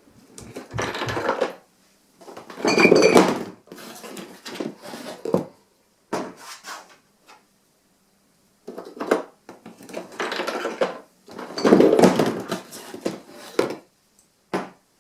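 Homemade cardboard-and-craft-stick vending machine being worked: coins dropping through its coin mechanism and a drink bottle clattering down into the tray. The knocking comes in two rounds, loudest about three and twelve seconds in, with a short ring in the first.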